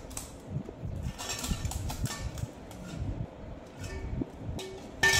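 Quiet eating sounds: pani puri being chewed and puris picked out of steel bowls by hand, with a few faint soft clicks. Near the end comes a sharper clink of a steel bowl.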